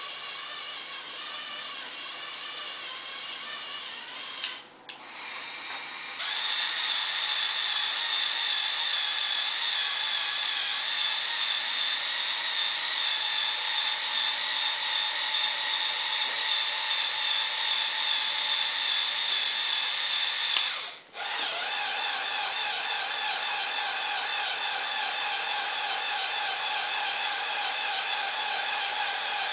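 Small electric motors and plastic gear trains of a motorised Lego Technic spider crane model whirring steadily as they drive the crane. The high whine cuts out briefly twice and comes back louder after the first break.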